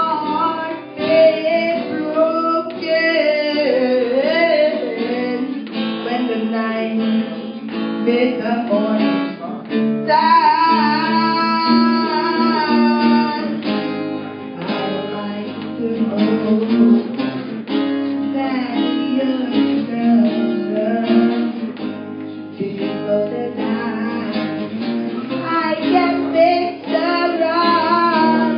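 A woman singing a slow melody into a microphone, accompanied by a strummed acoustic guitar.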